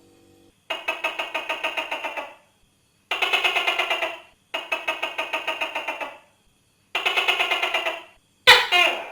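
Tokay gecko calling: four rapid pulsing bursts of about a second and a half each, then one short, sharp call with a falling pitch near the end.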